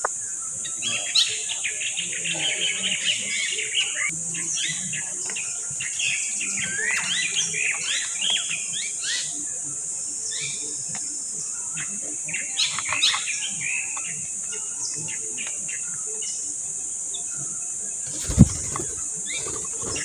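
Birds chirping in clusters over a steady, high insect drone. A single sharp thump about 18 seconds in is the loudest sound.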